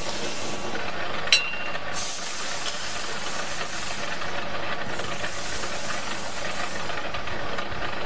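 Electric gear motor of a BS-005 copper wire stripping machine running steadily with no wire in it, a continuous hiss-like hum. There is one sharp click a little over a second in.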